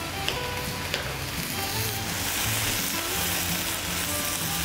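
Vegetables and aromatics sizzling steadily in a stainless steel sauté pan over a gas flame. The sizzle grows a little louder after about two seconds, with a couple of light clicks in the first second.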